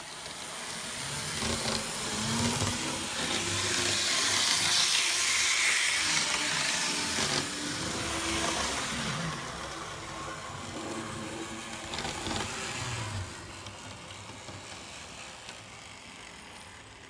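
Atlas N scale Alco RS3 model diesel locomotive running on its track: a steady whir from its electric motor and wheels, the pitch wavering, growing louder toward the middle and fading near the end.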